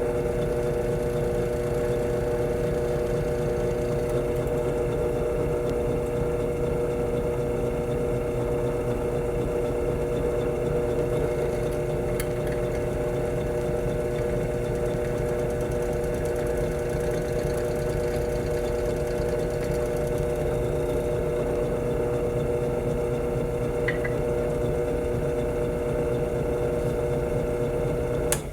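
Electric drill running steadily, its motor giving an even whine, as it bores a small hole through metal. It stops abruptly just before the end.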